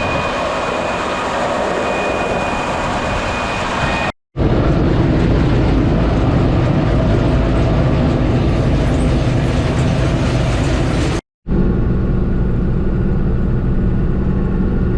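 John Deere 8820 combine running steadily while harvesting wheat: a loud, even engine and machinery din with a faint high whine in the first few seconds. The sound breaks off into silence twice for a moment, at about four and eleven seconds in.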